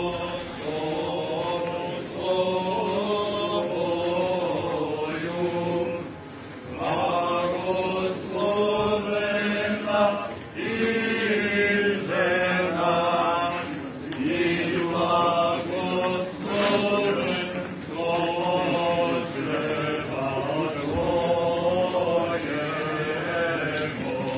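A procession crowd singing an Orthodox church chant together, in long held lines with short breaks between phrases.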